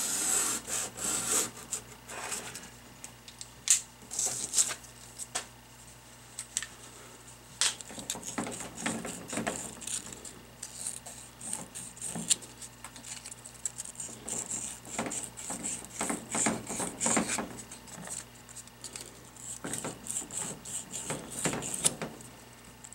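Crocus cloth rubbed by hand inside the bore of a hydraulic pump housing, polishing it: scratchy back-and-forth strokes that come in uneven runs, with a few sharp clicks.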